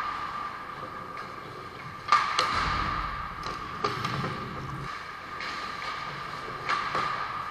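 Ice hockey play at the net: sharp cracks of sticks and puck, the loudest about two seconds in and others near four and near seven seconds, over a steady hum. A low rumble comes in the middle as players crowd the crease.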